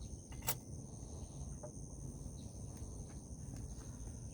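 Insects trilling steadily in two high pitches, over a low outdoor rumble, with one sharp click about half a second in.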